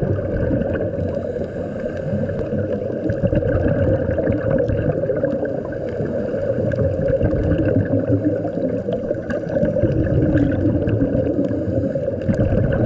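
Underwater ambience picked up by the diving camera: a steady low rushing rumble with faint scattered clicks.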